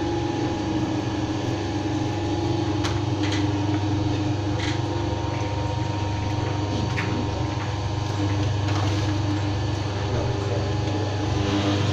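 Electric fish meat-and-bone separator running with a steady motor hum. Fish is pushed into its steel hopper, and a few short knocks come a few seconds in.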